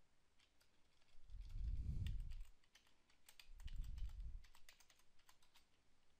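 Computer keyboard typing: a run of light, quick key clicks, thickest in the second half, as a password is entered at a login prompt. Two soft low rumbles come at about two and four seconds in.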